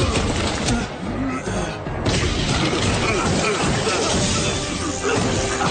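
Cartoon fight sound effects, crashes and blows, over background action music. Loud hits land at the start and again about two seconds in.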